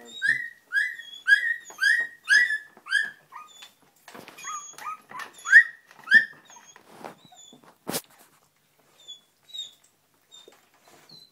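Young springer spaniel puppies whimpering: a run of short, high-pitched, falling cries about two a second for the first three seconds, then scattered cries that thin out. A single sharp click about eight seconds in.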